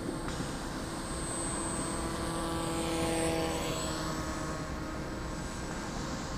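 The electric pusher propeller of a scratch-built R/C foam plane, driven by an E-max CF2822 brushless motor, whining as the plane flies past. It grows louder to a peak about three seconds in, then fades as the plane moves away.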